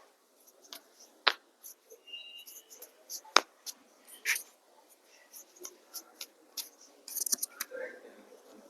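Scattered small clicks and handling noises of a chiropractic adjustment, with two sharp cracks, one about a second in and one a little after three seconds, and a brief thin squeak near two seconds.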